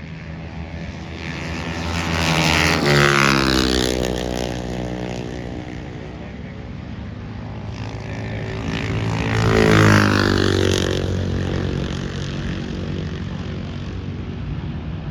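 Two high-revving engines pass close by one after the other, about seven seconds apart, each dropping in pitch as it goes past.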